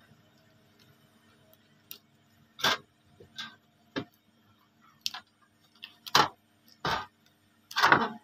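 Protective backing sheet being peeled by hand off a CNC-cut plastic logo plate: a run of about eight short, uneven crackles and rips. The sheet has partly stuck to the plate from heat.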